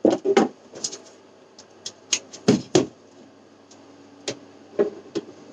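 Irregular clicks and knocks of hard objects being handled, about eight in all, with a faint steady hum coming in near the end.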